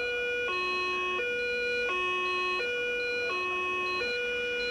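Fire truck siren sounding a two-tone hi-lo pattern, switching between a higher and a lower note about every 0.7 seconds.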